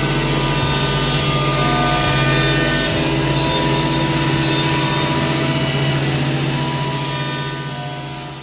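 CNC router spindle running with a steady high whine and hum, its noise fading out steadily over the last couple of seconds.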